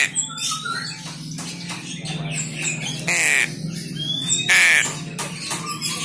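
Young crow giving two harsh, raspy squawks, one about three seconds in and one about four and a half seconds in. These are a hand-fed fledgling's begging calls for food.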